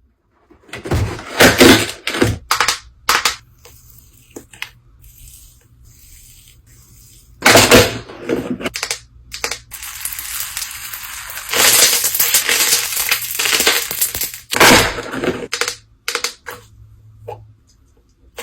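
Slime being handled and played with: irregular bursts of crackling and clicking, thickest in a longer stretch about ten seconds in.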